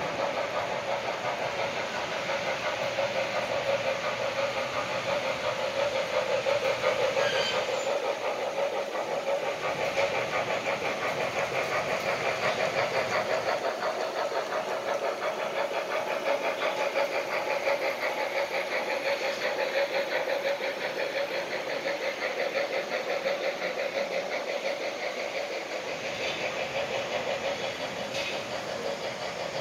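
O scale model trains running past on two-rail track: a steady rolling clatter of wheels on the rails with a fast run of clicks, swelling a little as a train passes close and easing toward the end.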